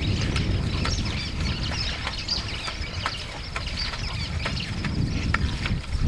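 Wind rumbling on the microphone under a busy scatter of small birds chirping.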